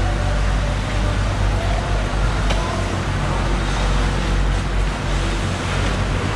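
Steady low engine rumble, like a nearby idling vehicle or traffic, with faint background voices and a single sharp knock about two and a half seconds in.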